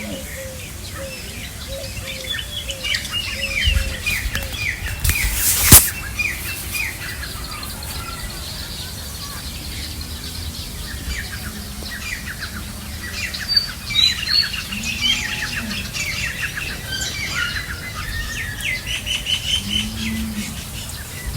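Many small birds chirping and twittering, with a sharp knock about six seconds in.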